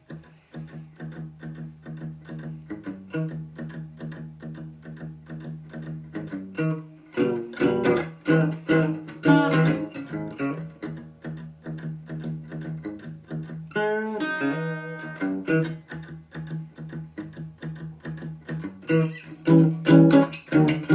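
Guitar playing a rhythmic blues riff on the low strings: open low E hammered on to the third fret, then the second fret on the D string, picked over and over. A fuller chord rings out about 14 seconds in.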